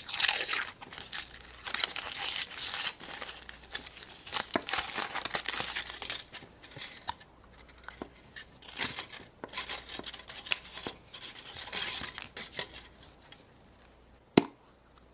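Hands unwrapping surprise-egg toys: plastic wrapping crinkling and tearing, with many light clicks and taps of small plastic pieces. It thins out near the end, and a single sharp click comes just before the end.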